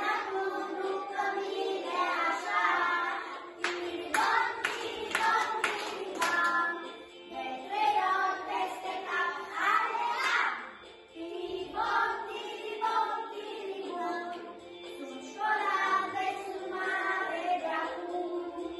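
A group of young children singing a song together, with a quick run of hand claps, about two a second, starting some four seconds in.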